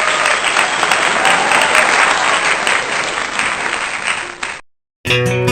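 Crowd applauding, cutting off suddenly a little over four seconds in. After a short silence, strummed acoustic guitar music starts near the end.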